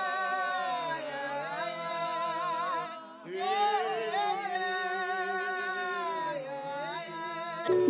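Background music with a sung melody of long, wavering held notes, pausing briefly about three seconds in.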